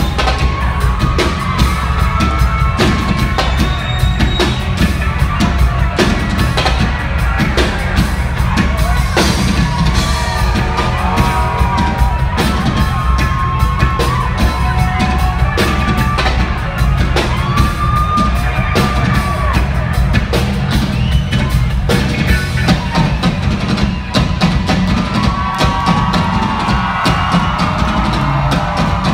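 A live band's drum kit and percussion playing a loud, driving jam over a heavy low end, with the crowd whooping and cheering over it.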